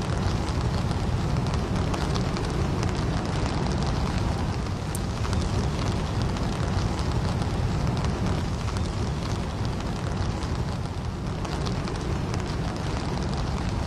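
Wind buffeting the camera microphone: a steady low rush of noise with hiss on top and no distinct events.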